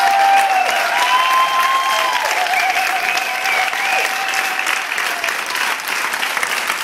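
Crowd applauding, a dense steady clapping, with a few drawn-out cheering calls from voices over it until about five seconds in.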